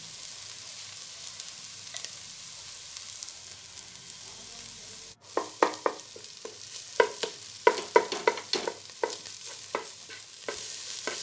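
Diced vegetables sizzling in a hot nonstick pot. After a split-second dropout about five seconds in, a wooden spatula stirs the scrambled egg through them, with a quick run of knocks and scrapes against the pot over the frying hiss.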